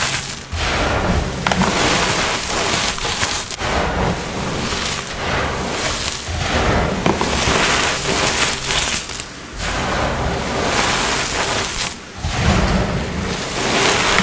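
Reformed blocks of coloured Holi powder being crushed by hand: dense, crumbly crunching and crackling in waves every couple of seconds, with a low thudding underneath.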